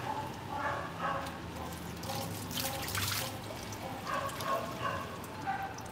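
Water from a garden hose splashing and trickling on a wet concrete floor as a dog is washed by hand, with a brighter splash about two and a half seconds in.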